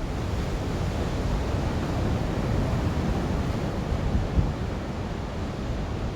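Rough sea surf washing in steadily, with wind buffeting the microphone in a low rumble.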